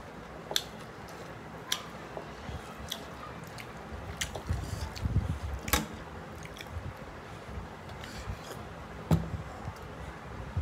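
Close-up mouth sounds of a person chewing mutton biryani: wet lip smacks and sharp clicks at irregular intervals over low chewing noise.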